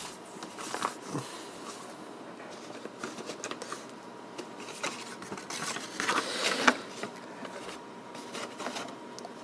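Handling noise from the kit's cardboard box and papers: rustling and scraping with a few light knocks, loudest about six seconds in.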